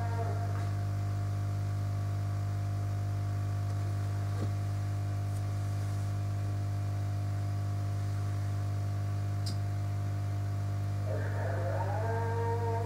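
Steady low electrical hum, with a faint click about four and a half seconds in and another about nine and a half seconds in. Background music comes back in near the end.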